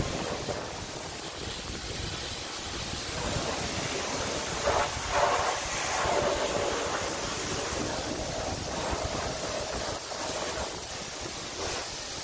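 Self-serve car wash high-pressure spray wand blasting water onto a car, a steady hiss that swells briefly about five seconds in.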